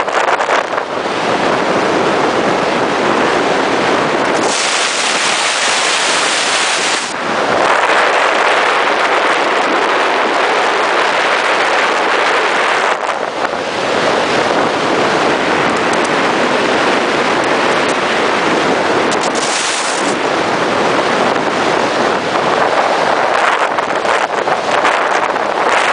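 Loud, steady rush of wind and road noise from a Scania G420 truck moving at highway speed on a wet road, with no distinct engine note. A harsher hiss swells about four and a half seconds in for a couple of seconds, and briefly again near twenty seconds.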